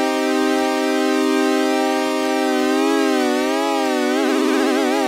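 Korg Polysix synthesizer holding one sustained note. About halfway through, its LFO starts modulating the oscillator pitch as a slow vibrato, which turns faster and deeper near the end.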